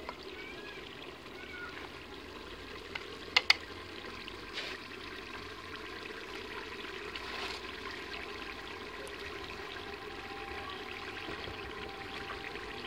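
Curry simmering in an aluminium pot over a wood fire, a steady low bubbling hiss. Two sharp clicks close together about three and a half seconds in.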